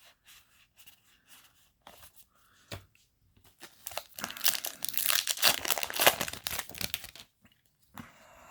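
Foil trading-card booster pack wrapper being torn open and crinkled: a dense crackling stretch of about three seconds in the middle, after a few light taps and rustles.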